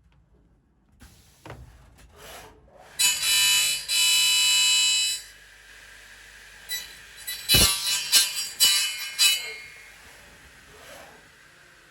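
A machine gives a loud, steady buzzing whine with many overtones for about two seconds, then a quick run of sharp clanks and knocks, one heavier than the rest.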